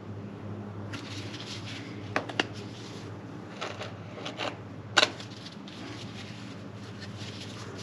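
A filler knife scraping and spreading wood filler on a wooden frame, in short strokes with a few sharp clicks of the blade, over a steady low hum.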